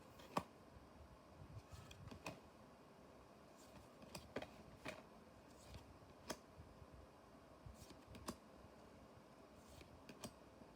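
Trading cards handled and flicked through by hand: faint, irregular clicks and taps, the sharpest about half a second in.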